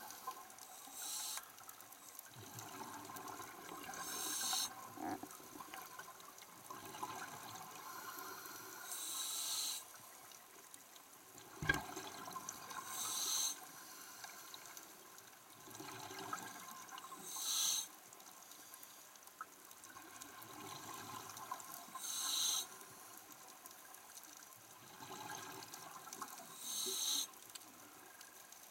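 A scuba diver's regulator breathing underwater: a brief hiss with each inhale, about every four to five seconds, and bubbling exhalations in between. One sharp knock about halfway through.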